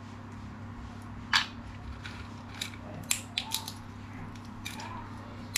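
Raw peanut shells cracking as they are split open between the fingers: one sharp crack about a second in, then a scatter of smaller cracks and crackles.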